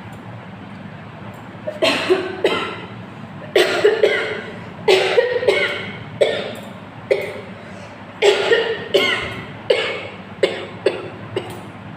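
A woman coughing in repeated fits, about fifteen short coughs in clusters of two or three, starting about two seconds in. The coughs are driven by dried red chilli powder caught in her throat, which she says she has to cough out on purpose to clear it.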